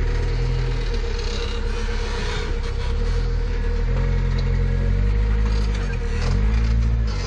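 Modified Suzuki Samurai rock crawler's engine running at low revs while crawling over boulders. It is blipped up and down several times in the second half, the pitch rising and falling with each blip.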